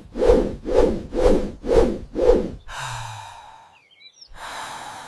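Cartoon sound effects: a run of five quick swishing strokes, about two a second, followed by two longer whooshes.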